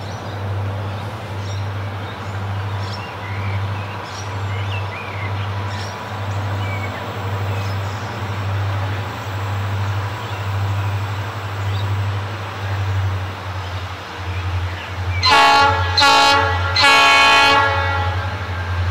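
Diesel locomotive horn on an approaching Aurizon grain train, sounding three blasts about fifteen seconds in: two short, then a longer one. Under it runs a low, steady rumble, and birds chirp in the first half.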